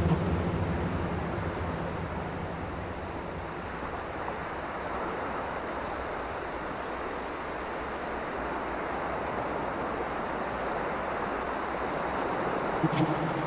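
Dark cinematic water drone: a sound-design texture of layered, processed water sounds giving a steady, surf-like rushing. A deep low rumble fades out over the first couple of seconds and swells back in near the end.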